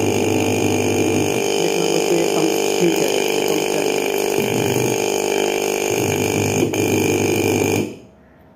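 Coffee vending machine's vibratory solenoid pump running on mains power, giving a loud, steady buzz that starts abruptly and cuts off suddenly near the end.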